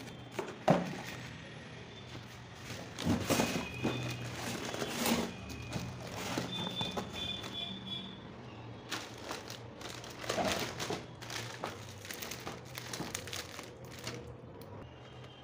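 Cardboard box and plastic wrapping handled while a wall-mounted fan is unpacked: irregular rustling, plastic crinkling and cardboard scraping, with a sharp thump about a second in.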